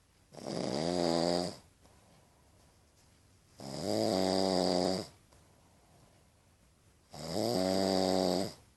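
Snoring: three loud snores about three and a half seconds apart, each lasting a little over a second, with a steady pitched drone.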